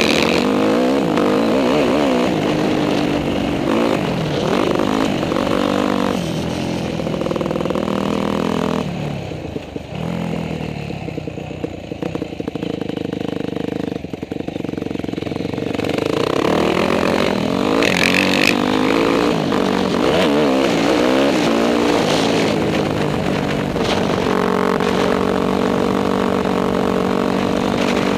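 Dirt bike engine heard close up, revving up and down through the gears. About nine seconds in it drops to a low, steady idle for several seconds, then picks up again and holds high revs near the end.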